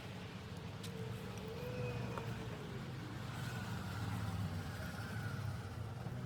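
Steady low machine hum with a constant pitch and a faint hiss over it.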